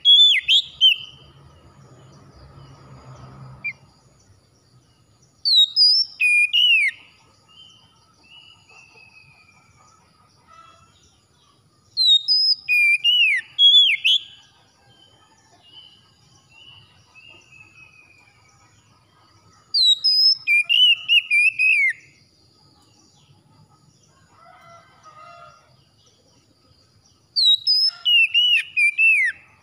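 Oriental magpie-robin singing: loud phrases of clear, sliding whistles, five in all, one about every seven seconds, with softer falling notes between them.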